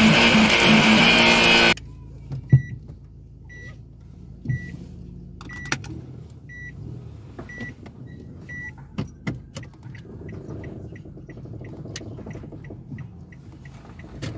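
Electric guitar music that cuts off suddenly after about two seconds, then the inside of a car: a short high electronic beep repeating about once a second, giving way to quicker, fainter ticks, over a low engine hum with a few sharp knocks.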